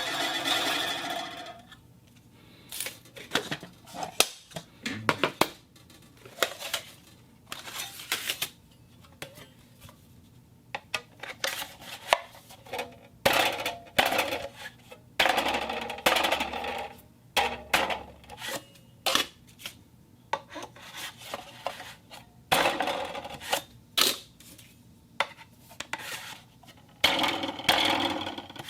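Wooden box handled for sound effects: an irregular series of knocks, taps and clicks with longer scraping, rubbing passages, and a short ringing, tone-like sound at the start and again near the end.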